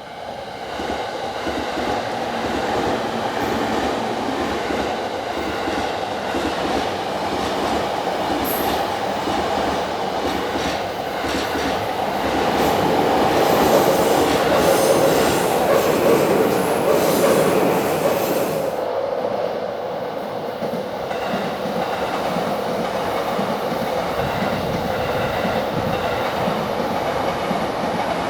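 Electric commuter train passing close by on the Yamanote freight line tracks, its wheels rattling rapidly over the rail joints. It is loudest about halfway through, and the higher hiss fades out about two-thirds of the way in while the running noise goes on.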